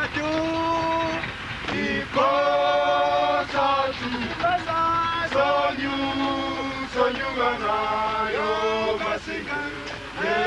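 A group of men singing a cappella as they march, a slow chant of long held notes, one after another.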